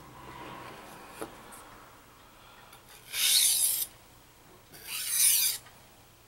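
Steel knife blade stroked across a coarse 400-grit sharpening stone, two gritty scraping strokes of under a second each, about three and five seconds in. The strokes are light, to keep the soft steel from raising a heavy burr.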